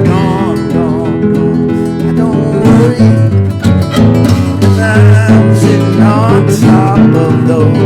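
Guitar playing a finger-picked blues instrumental break: a steady bass pattern under high, bent notes that waver in pitch.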